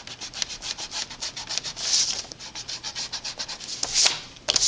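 Stick eraser rubbing back and forth on cardstock in quick, rapid strokes, erasing pencil guide lines.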